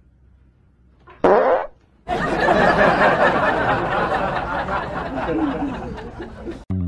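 A short, loud fart sound about a second in, followed by a person laughing for several seconds.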